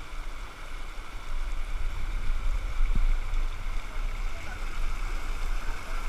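Mountain stream rushing over smooth granite ledges into a pool, a steady wash of water. A low rumble on the microphone grows stronger about a second and a half in, with one short knock near the middle.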